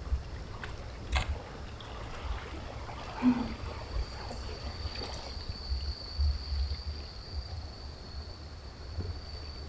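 Sea water lapping and trickling against a breakwater, under a low rumble. There is a sharp click about a second in, and a faint steady high-pitched tone comes in about three and a half seconds in.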